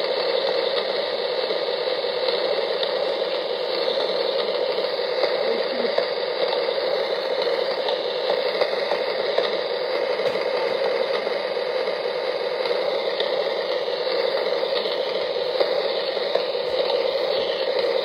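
Steady rain falling, an even patter that does not let up.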